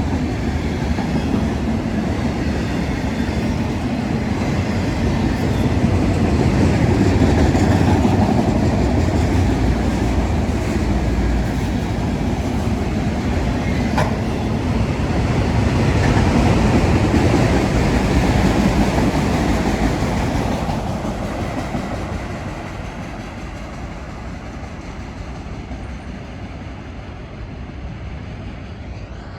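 CSX freight train's cars rolling past on the rails, a steady rumble with one sharp click about halfway through; the sound fades over the last third as the train moves off.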